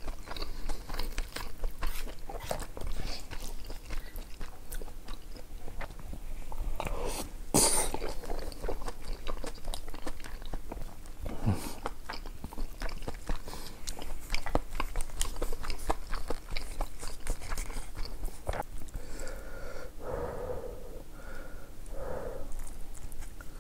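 A person chewing and biting food in many small wet clicks and crunches, with one louder noisy mouth sound about seven seconds in.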